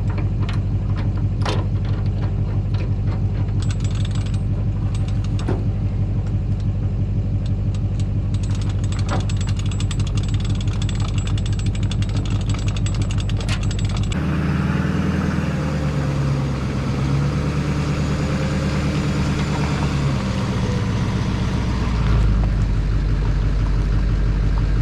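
An engine running steadily with a fast, even pulse. About fourteen seconds in it changes abruptly to a different engine sound whose pitch wavers up and down.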